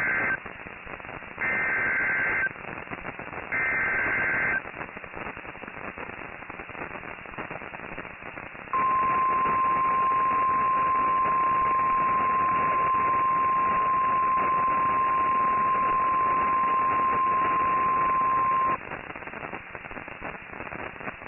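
NOAA Weather Radio Emergency Alert System signal: the end of one SAME digital header burst, then two more buzzy data bursts of about a second each, two seconds apart, over radio hiss. After a few seconds of hiss, the steady 1050 Hz Warning Alarm Tone sounds for about ten seconds and cuts off, announcing a newly issued tornado warning.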